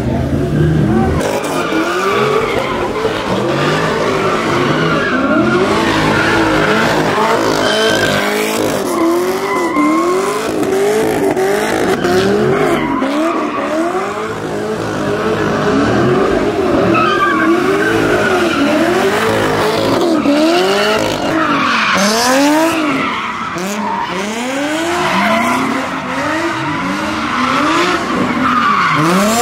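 A car doing donuts: its engine revs rise and fall about once a second as the throttle is worked, over the continuous screech of spinning tires on pavement.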